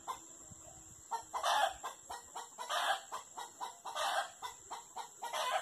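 Chickens cackling in a run of short, separate squawks, roughly one or two a second.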